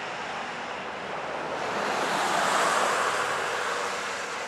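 Freight train cars rolling past on the rails, a steady noise of wheels on track that swells about two seconds in.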